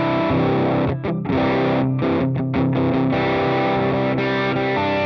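Stratocaster electric guitar played through a ProCo RAT distortion pedal into a Vox AC15 valve amp. Distorted chords are strummed and let ring, with a few short breaks between chords in the first two and a half seconds, then held.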